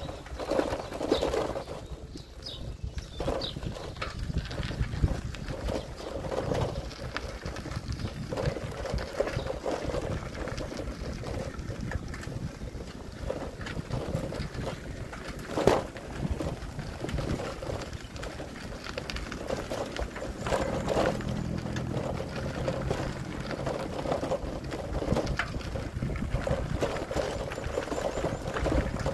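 Bicycle ride noise: wind on the microphone and tyres running over a concrete lane and then a dirt track, with small rattles and clicks from the bike and a sharp knock about sixteen seconds in. A low hum comes in for a few seconds a little past the middle.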